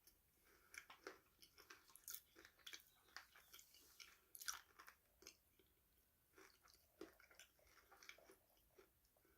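Someone chewing crunchy food close to the microphone: irregular crisp crunches and bites, the loudest about two and four and a half seconds in.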